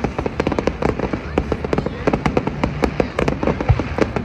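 Fireworks crackling and popping in a rapid, dense barrage of many sharp reports a second. A couple of deeper booms come near the end.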